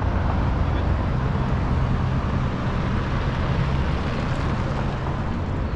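A car driving past on the street, a steady low rumble of engine and tyres.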